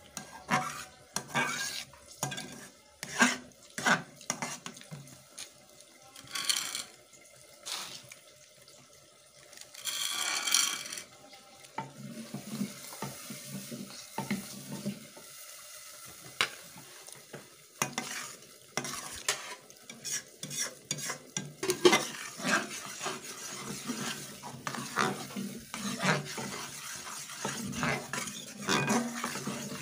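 A metal fork-turner scraping and tapping against the sides and bottom of a metal pan as a thick milk and chhena mixture for kalakand is stirred over the flame, with the mixture faintly sizzling and bubbling.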